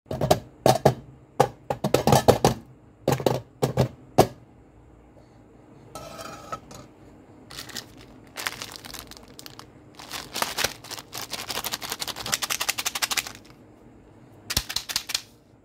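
Metal candy tins knocked and clicked as they are handled and opened, with sharp hits in the first few seconds. From about eight seconds in there is a long, dense rattle of small hard candies poured from a Skittles packet into an open metal tin, and a short burst of clicks comes near the end.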